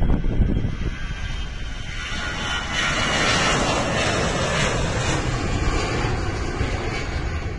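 Twin jet engines of an Airbus A320-family airliner at takeoff thrust as it lifts off and climbs out. The roar swells to its loudest around the middle, then eases slightly. Wind rumbles on the microphone underneath.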